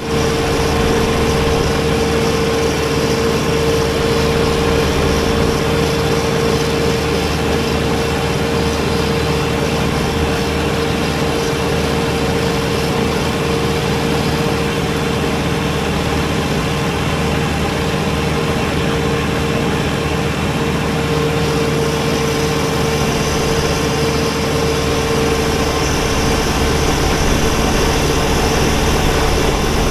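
Kubota BX23S compact tractor's three-cylinder diesel engine running steadily with a front-mounted snowblower, a steady whine standing out over the engine note.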